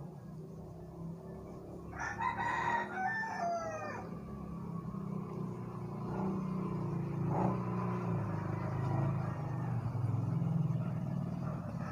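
A rooster crows once, about two seconds in: a call of about two seconds that falls in pitch at the end, over a steady low hum.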